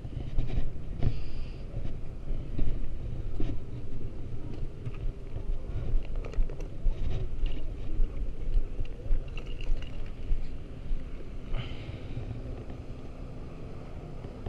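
Wind buffeting the microphone: a low, gusty rumble rising and falling in level, easing off near the end. Scattered clicks and rustles of gear being handled come through it.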